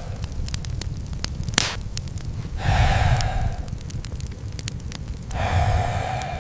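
Campfire crackling with sharp pops scattered throughout over a steady low rumble. Three long breathy exhales or sighs come about every three seconds.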